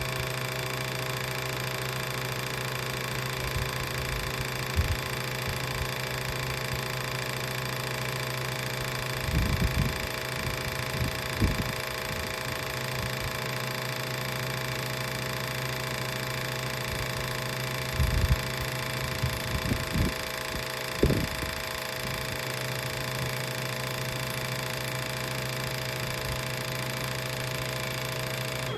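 Electric machine running with a steady, even hum made of several constant tones. A few dull knocks come about a third of the way in and again past the middle, and the machine cuts off suddenly at the end.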